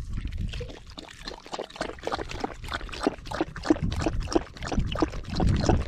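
Dog lapping water from a bowl, a quick, even run of wet laps at about three a second.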